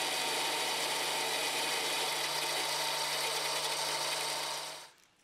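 Metal lathe running while a twist drill in the tailstock bores into the spinning metal workpiece, drilling the tap hole for an M12 thread. The steady cutting noise has a low motor hum under it and stops near the end.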